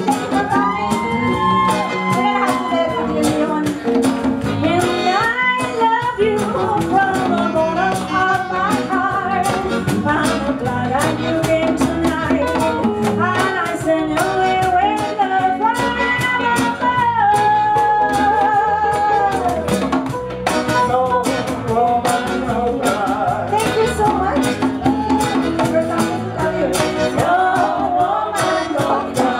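Live band music: a woman singing lead over acoustic and electric guitars, keyboard and saxophone.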